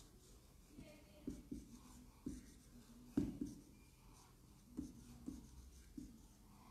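Faint sounds of handwriting, with a scatter of short soft knocks as the writing tool meets the surface, the loudest a little past three seconds in.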